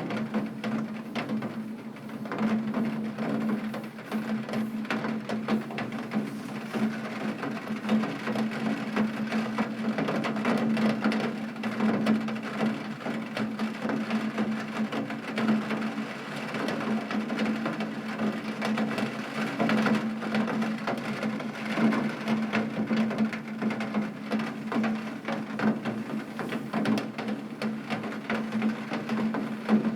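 Rain falling steadily on a tin roof: a dense, even patter of many small drop impacts, with a steady low hum beneath.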